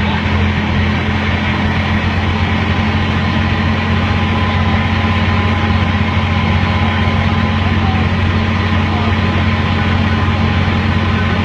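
Park ride train running steadily: a constant low engine drone with an even rumbling noise over it.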